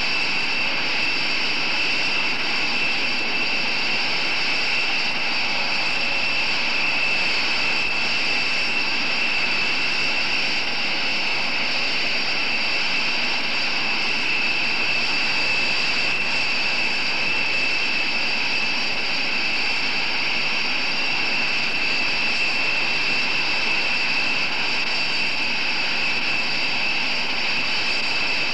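Rockwell B-1B Lancer's four General Electric F101 turbofans idling with the bomber parked on the ramp: a steady high-pitched turbine whine over a broad rush of exhaust noise.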